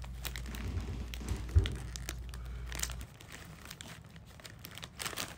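Crinkly potato-chip bag being rustled and handled in a crackle of small clicks, with one dull thump about a second and a half in.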